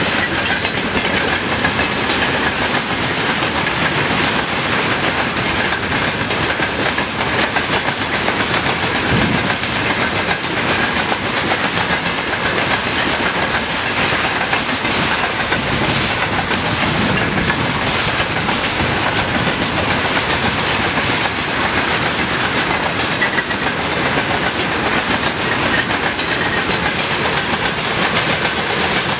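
Freight train wagons (tank cars, covered wagons and hopper cars) rolling steadily past, with continuous rail noise and the clatter of wheels over rail joints.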